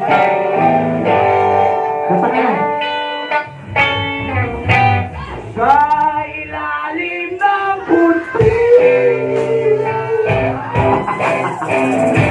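Live rock band performing: singing over electric guitars and drums.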